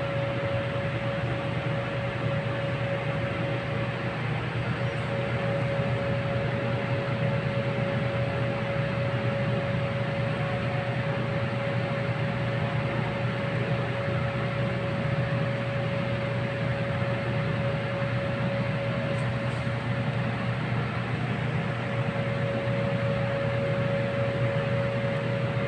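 Steady hum and hiss of aquarium equipment running, with a constant mid-pitched tone over a low drone and no change throughout.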